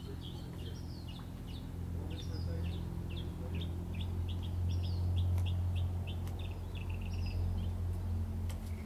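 Small birds chirping in a quick, continuous run of short high notes, over a steady low hum.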